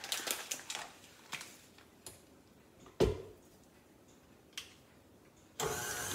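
Light paper rustling and clicks from handling a cut-open seasoning packet, with a single knock about halfway through. Near the end, a KitchenAid stand mixer switches on abruptly and runs with a steady motor hum, starting to beat cream cheese with the paddle attachment.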